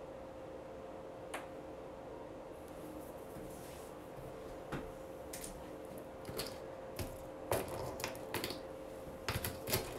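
Scattered small clicks and taps of shells and beach glass being picked up and set down, coming more often over the last few seconds, over a faint steady hum.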